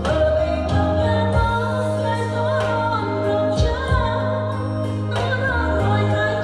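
A karaoke song: a singer carries a wavering melody over sustained bass notes and a backing track with drum hits.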